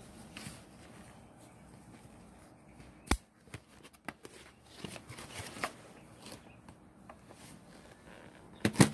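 Packaging being cut and pulled off a large Bowie knife: scattered rustling and small clicks, with a sharp click about three seconds in and a quick cluster of louder clicks near the end.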